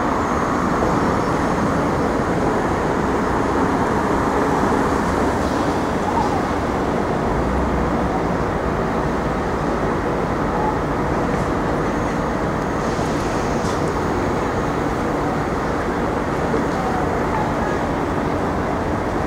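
Steady city street traffic: a continuous rush of passing vehicles with no single event standing out.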